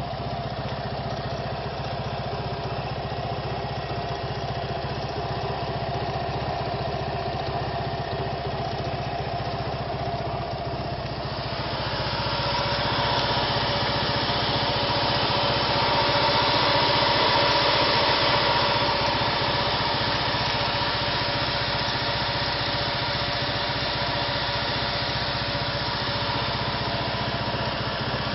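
Quadro 350D three-wheeled scooter's engine idling steadily. About twelve seconds in it turns louder and brighter, loudest a few seconds later, then settles.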